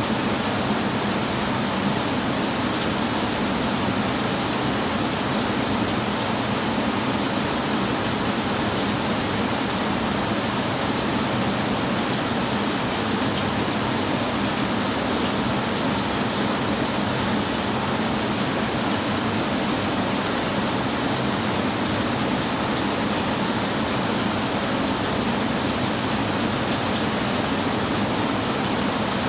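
Rain falling steadily on a tin roof, an even, unbroken noise with no thunder.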